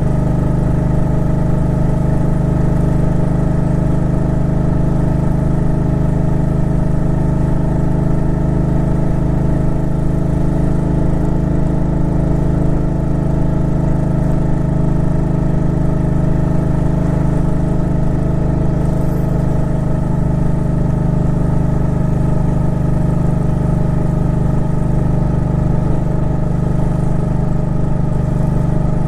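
Suzuki Intruder Classic 400's V-twin engine running steadily at an even pitch.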